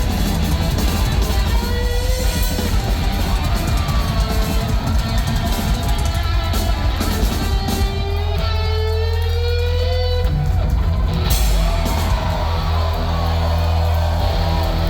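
Live rock music from a guitar-and-drums duo: loud distorted electric guitar over a pounding drum kit. About eight seconds in, the steady drum hits give way to a sustained low guitar rumble with wavering, bending notes ringing over it.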